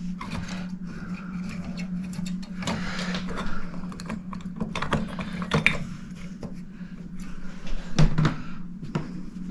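Scattered clicks, taps and knocks of a clock case being handled while its top is worked loose, with one sharper knock about eight seconds in, over a steady low hum.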